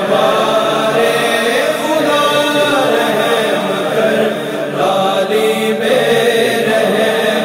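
Devotional vocal chanting in layered, sustained voices, the vocal backing of an Urdu hamd, with no words picked out.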